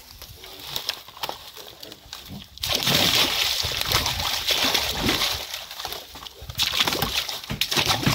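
Live carp of a few kilograms each tipped from a plastic crate into a lake, slapping into the water and thrashing at the surface. The splashing starts suddenly about two and a half seconds in, eases briefly near the end, then picks up again.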